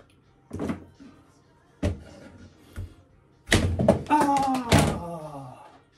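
Kitchen knife cutting a peeled persimmon on a plastic cutting board: a few separate knocks of the blade on the board, then a quick run of knocks about three and a half seconds in. A short voice with falling pitch sounds over the last of them.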